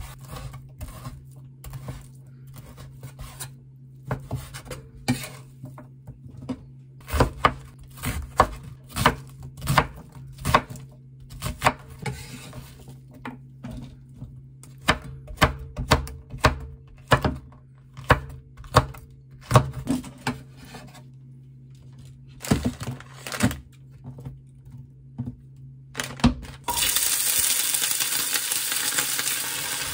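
Kitchen work: irregular knocks and clinks of utensils and dishes, one or two a second. About 27 seconds in, food goes into a hot pan and a steady sizzle of frying starts.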